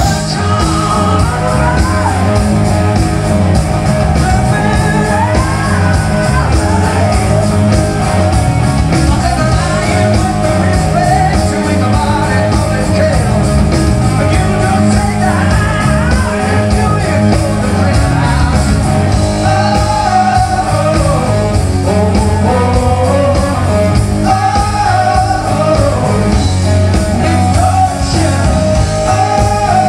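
Live rock band playing loud: a male lead vocal sings over electric guitars, bass and drums, heard from the audience.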